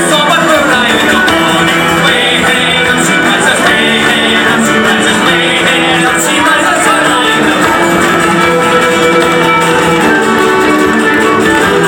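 A band playing live on stage: violin, cello and a frame drum, with a man singing over them, loud and without a break.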